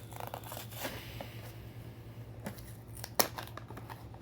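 Cardboard blind box and its packaging being opened by hand: rustling and scraping of card, then a small click and a sharper snap about three seconds in.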